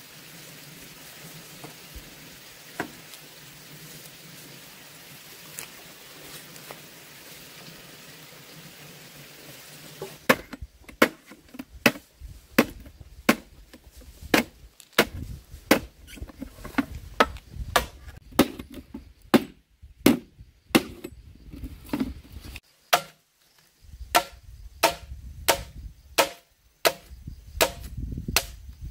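A faint steady background, then from about ten seconds in a long run of sharp, irregular chopping strikes, one or two a second, each with a short ring.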